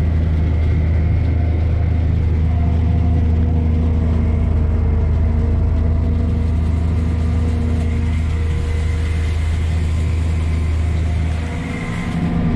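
Diesel engines of a tractor and a tracked sugarcane harvester running steadily under load, heard from inside the tractor cab while the harvester cuts cane and loads the wagon. They make a constant low drone with a few steady higher tones, which eases slightly near the end.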